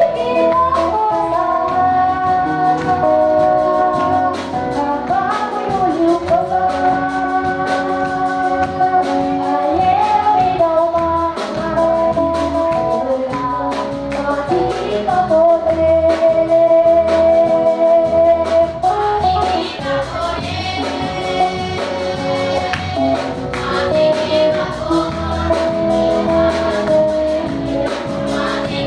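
Group of girls singing a church song into microphones, amplified through a PA, over instrumental backing with a steady beat.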